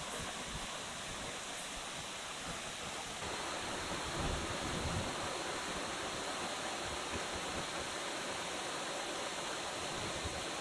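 Shallow jungle stream rushing over rocks, a steady wash of flowing water that gets a little louder about three seconds in.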